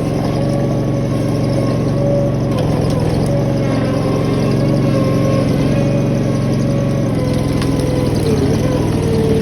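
Toro skid steer's engine running steadily at a constant speed, its pitch wavering near the end.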